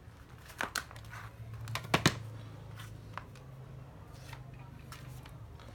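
Handling noise from old cordless drills being moved and set down: a few sharp clicks and knocks, the loudest two close together about two seconds in, over a faint steady low hum.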